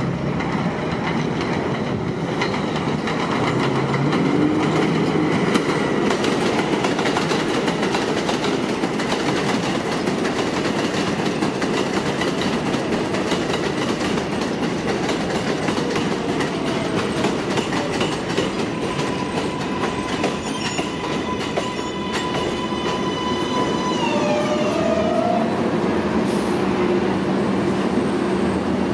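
R188 subway train on the 7 line pulling into an elevated station, its wheels clattering steadily over the rails. Near the end a whine from the train's motors falls in pitch as it slows to a stop.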